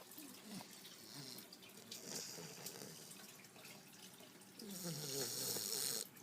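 English Bulldog puppy snoring in her sleep: a few quiet, breathy snores, then a longer and louder snore near the end.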